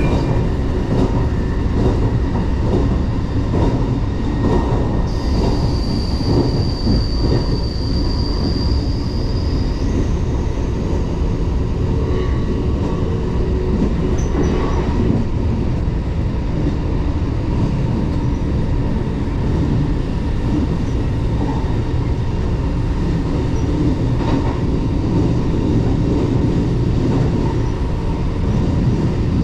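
JR West 381 series tilting electric train running at speed, heard from inside the car by the door as a steady, loud rumble of wheels and motors. A steady high squeal sets in about five seconds in and stops about five seconds later.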